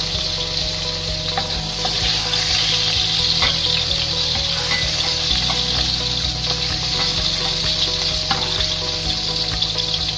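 Hot oil sizzling steadily in a nonstick wok as pieces of food fry. A wooden spatula stirring through the pan adds now-and-then scrapes and taps.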